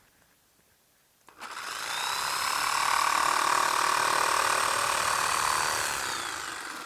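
An electric power tool's motor starts about a second in, whines up to speed, runs steadily for several seconds, then winds down with a falling whine near the end.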